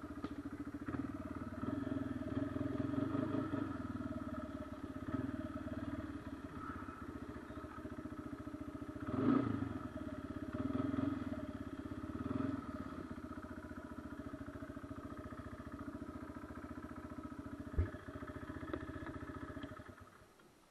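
Kawasaki Brute Force 300 ATV's single-cylinder engine running while riding, rising and easing with the throttle several times. A single sharp knock comes near the end, and shortly after it the engine sound falls away to near quiet.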